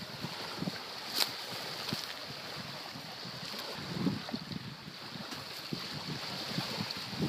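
Steady wind and surf noise with irregular low thumps of wind buffeting a phone's microphone, and a single sharp click about a second in.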